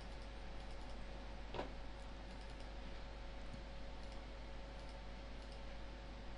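Faint computer mouse clicks, a scattering of small ticks with one stronger click about one and a half seconds in, over a steady hiss and low hum of the recording.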